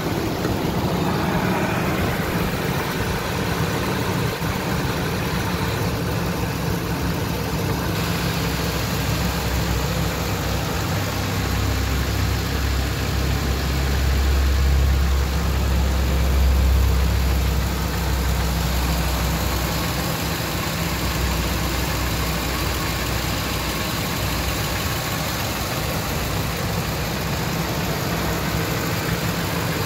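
2003 Ford F-150 FX4's V8 engine idling steadily with the hood open. It gets somewhat louder and deeper for several seconds in the middle.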